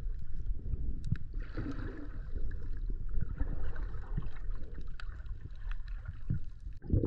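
Underwater camera audio: a muffled low rumble of water moving around the camera, with scattered sharp clicks and crackles.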